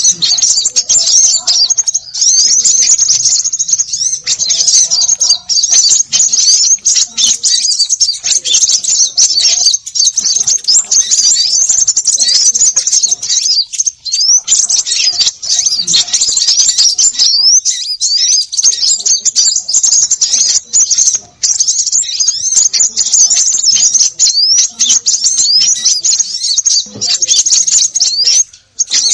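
A noisy chorus of many small birds calling at once: rapid high-pitched chirps and twitters overlapping without a break. This is the excited 'konin ribut' small-bird mix used as a lure call to draw small birds in.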